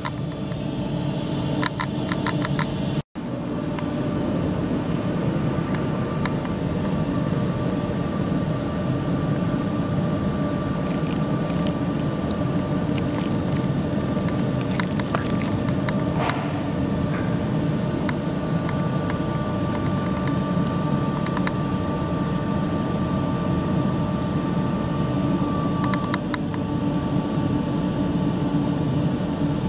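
Steady mechanical rumble of running machinery with a faint steady whine, and a few light clicks. It cuts out for a moment about three seconds in.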